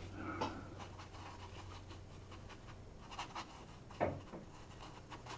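Quiet handling sounds of painting with a watercolour brush: a few soft taps and rubs, then a sharper knock about four seconds in, over a low steady hum.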